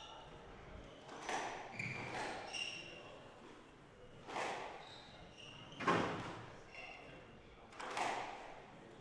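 Squash rally: the ball is smacked by rackets and off the walls of a glass-walled court about every one and a half to two seconds, each hit echoing in the hall, with the loudest about six seconds in. Short squeaks of shoes on the wooden court floor come between the hits.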